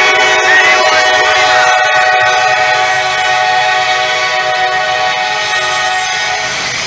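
Diesel freight locomotive's multi-chime air horn sounding one long, steady blast, a chord of several held notes, over the passing train.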